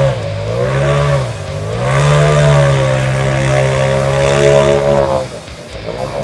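Side-by-side UTV engine revving hard in a deep mud hole: the revs dip and rise twice, then are held high for about three seconds with the machine stuck in the mud, and drop off about five seconds in.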